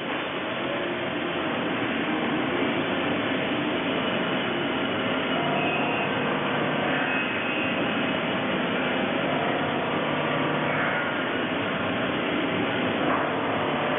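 Toyoda GT54 CNC lathe running with a steady, even machine noise and faint whining tones, and a light click near the end.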